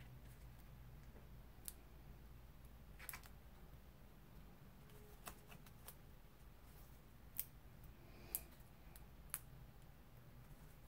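Near silence with faint, scattered small clicks and crackles of paper being handled, as the backing paper is peeled off double-sided foam tape.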